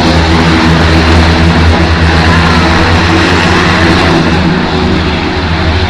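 Embraer T-27 Tucano turboprop aircraft running loud and steady: a low propeller drone with evenly spaced tones, under a broad hiss. It eases off slightly near the end.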